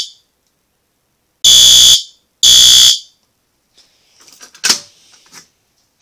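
Fire alarm horn-strobes (System Sensor SpectrAlert Advance) sounding the temporal-three evacuation pattern: after a pause, two loud half-second blasts half a second apart, then the horns stop before the third blast as the alarm is silenced. A few faint clicks and one sharp click follow.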